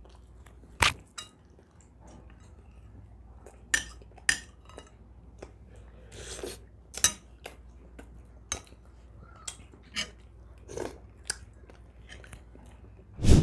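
Eating sounds: chewing, with a dozen or so sharp clicks and clinks of a spoon on china plates scattered through.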